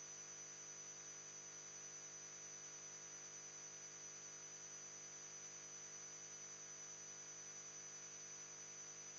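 Near silence: a steady low hum and faint hiss, with no other sounds.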